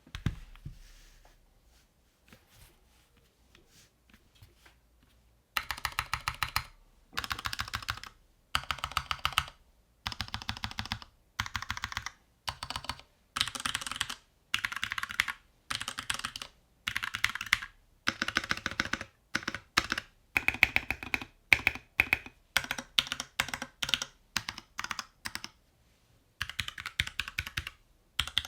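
Mechanical keyboard being typed on in quick runs of keystrokes about a second long, separated by short pauses: a NovelKeys NK65 Entry with a polycarbonate case, fitted with Gateron Yellow switches. For the first five seconds or so there are only a few faint scattered clicks before the typing starts.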